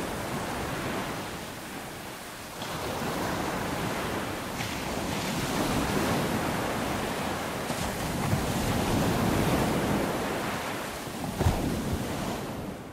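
Ocean surf: waves breaking and washing in, swelling and ebbing every few seconds, with one short sharp knock near the end.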